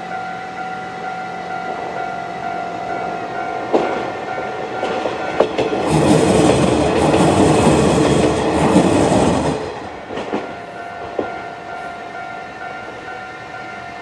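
Railway level-crossing warning bell ringing in a steady repeating pattern while a two-car diesel railcar train rolls through. The train is loudest about six to nine and a half seconds in, with sharp wheel clacks over the rail joints as it approaches and leaves. The bell keeps ringing after the train has passed.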